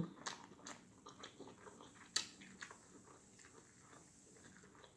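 A person chewing a mouthful of burger close to the microphone: irregular soft smacks and crunches, the sharpest about two seconds in.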